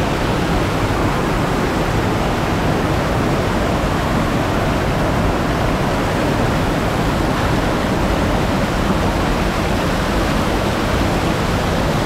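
Waterfall: a loud, steady rush of falling water that does not let up.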